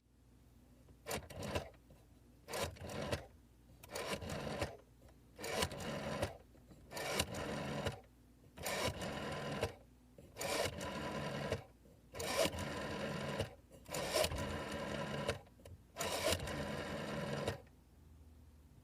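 Rotary telephone dial being dialed, about ten digits in a row: each one a click as the dial is wound and released, then the whirring, clicking return of the dial, the returns lasting from under a second to about a second and a half depending on the digit.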